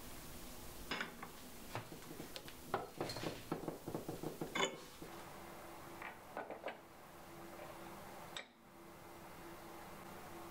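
Steel tool holder and collet chuck parts clinking and clicking against each other as a cutter is fitted and the holder is handled: a quick run of light metal clinks, then a few scattered ones.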